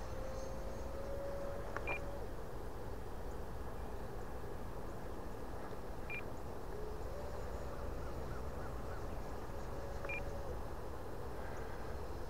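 Three short, high electronic beeps about four seconds apart. Under them, the faint steady whine of the E-flite Viper's 70mm electric ducted fan in flight shifts pitch a few times with the throttle, over a low rumble of wind.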